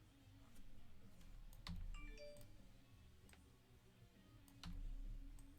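Faint, scattered clicks of a computer mouse and keyboard, about half a dozen, with a few soft low knocks.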